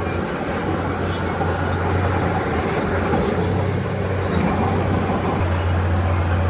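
Komatsu D31P bulldozer's diesel engine running steadily with a constant low hum, with short high squeaks scattered through it.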